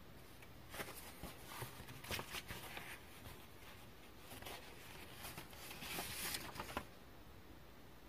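Cross-stitch floss being drawn through black 14-count cross-stitch fabric and the cloth being handled: a run of soft zipping rustles from about a second in until near the end, loudest around two and six seconds.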